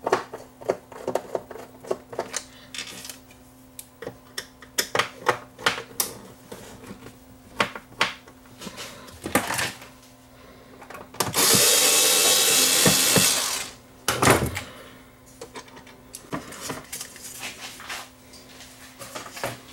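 A cordless drill/driver runs in one steady burst of about two seconds near the middle, backing out a screw from the turntable's bottom cover. Around it are scattered light clicks and taps of screws and tools being handled.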